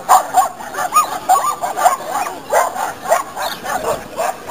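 A dog barking in short, quick barks, several a second, without a pause.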